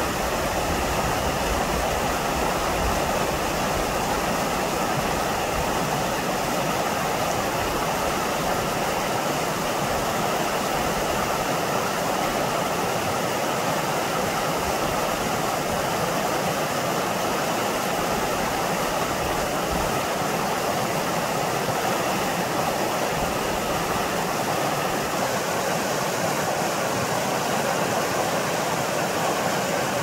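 Mountain stream running strong: a steady, even rush of flowing water.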